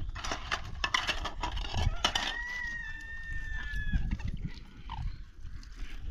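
A rooster crows once in the middle, one long held call that falls slightly at the end, over the clatter of plastic and metal dishes being handled and stacked.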